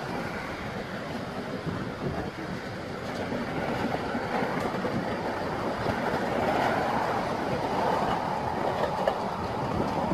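Heavy demolition plant running: the diesel engines of tracked excavators and a tracked mobile crusher, a steady rumble with irregular clattering of broken concrete and brick. It grows a little louder about six seconds in.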